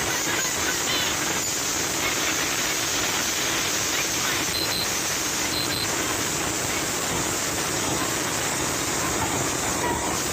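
Steady loud rushing noise at an even level, with faint voices under it and two brief high beeps about halfway through.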